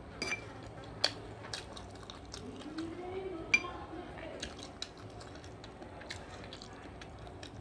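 Eating sounds: a spoon clinking and scraping against a plate or bowl with some chewing, with sharp clinks about a second in and again at about three and a half seconds.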